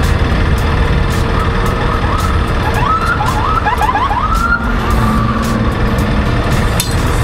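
Police car siren giving a string of short rising whoops, then one longer wail that fades out, over a steady low rumble of idling engines and traffic.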